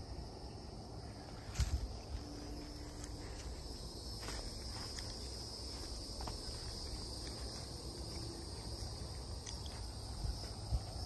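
Steady high-pitched insect chorus, one unbroken trill. A single sharp knock sounds about one and a half seconds in.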